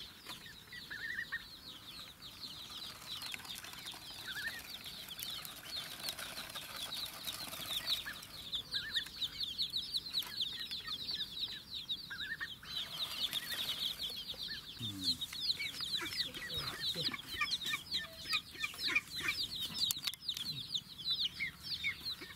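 A group of young chicks peeping continuously in short, high, falling cheeps. The peeping grows busier and louder from about a third of the way in.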